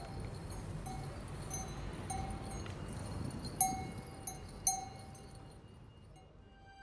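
A bell rings in short, irregular strikes over a low rumble, with two sharper strikes about halfway through, then the sound fades away near the end.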